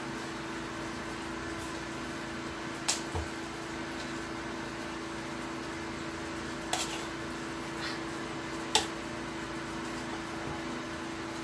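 Steady mechanical hum with one constant tone, broken three times by sharp metallic taps of a knife against a metal pizza pan, the last the loudest.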